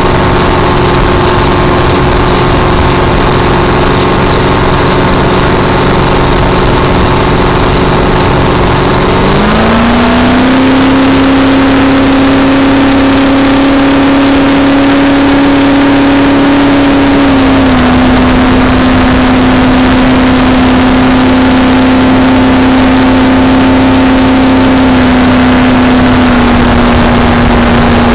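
Supercharged Ford engine of a flat-bottom race boat running under way. About nine seconds in the revs climb quickly to a higher steady pitch, then ease down a little twice, over a rush of wind and water.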